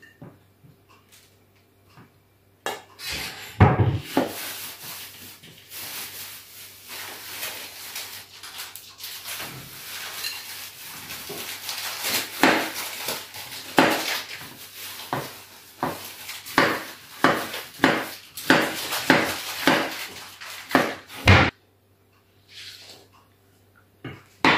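Kitchen knife dicing apple on a wooden cutting board: a run of sharp knocks, about two a second, that stops near the end.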